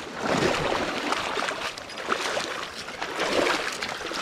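Wading footsteps splashing through shallow river water, an irregular run of sloshes and splashes over the steady rush of the river current.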